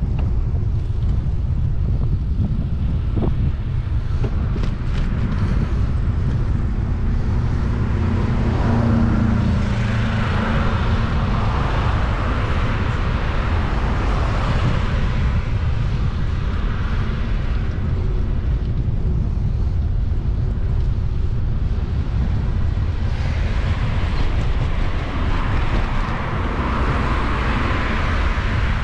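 Steady low wind rumble on the microphone of a moving bicycle, with road traffic passing twice: a swell of tyre and engine noise about a third of the way in and another near the end.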